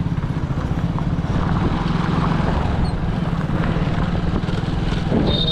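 Motorcycle engine running at a steady speed while riding, with road noise. A brief high tone sounds near the end.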